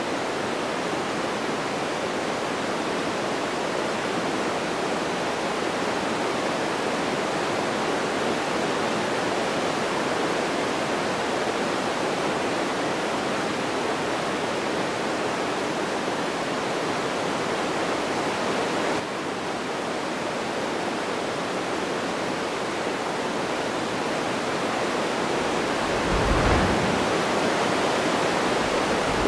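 Steady rushing wind noise over the onboard camera microphone of a fast-flying FPV drone, with no clear motor tone. It shifts abruptly about two-thirds of the way through, and deep buffeting thumps come near the end.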